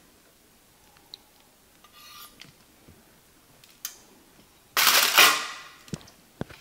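Strings being cut and pulled off a smoked beef roast on a chopping block: small clicks and taps, then about five seconds in a sudden loud noise that fades over about a second, followed by a couple of sharp knocks.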